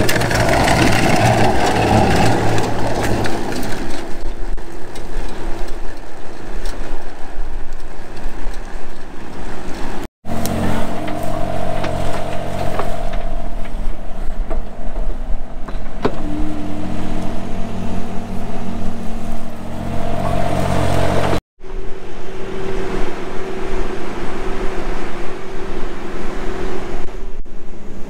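Heavy farm machinery engines running steadily: a compact excavator and a Case IH Quadtrac tractor pulling a drainage tile plow, in three clips joined with abrupt breaks about ten and twenty-one seconds in. A louder rushing noise sits over the engine in the first few seconds.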